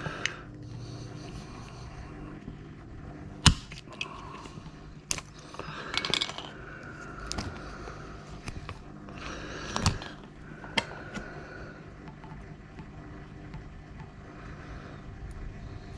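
Sharp clicks and short scraping noises of small tools and metal parts being handled, as a pin is worked out of a connector's plastic housing. The loudest clicks come about three and a half and five seconds in, with scraping around six and ten seconds.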